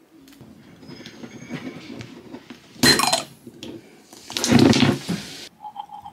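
Dishes and cutlery clinking softly, with two louder, noisier bursts about three seconds and four and a half seconds in.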